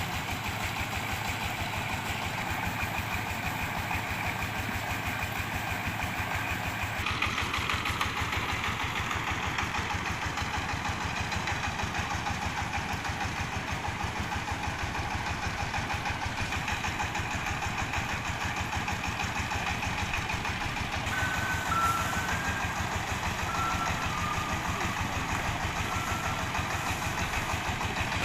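Diesel engine of a mobile rice-milling machine running steadily, with an even, rapid chugging. About seven seconds in the sound grows brighter and a little louder. A few short high-pitched tones come in during the last third.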